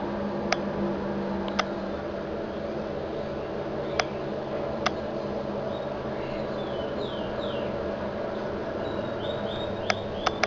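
Brastemp Super Capacidade 7 kg washing machine running with a steady droning grind from its blown drum bearings, heard from a distance, with a few sharp clicks. Birds chirp in the background during the second half.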